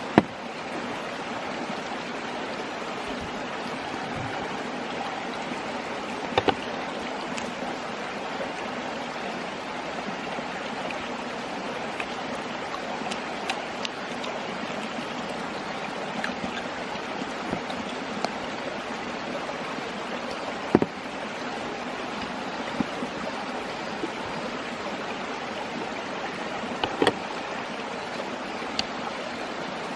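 Mountain stream babbling steadily, with a few short, sharp knocks scattered through, the loudest about twenty seconds in.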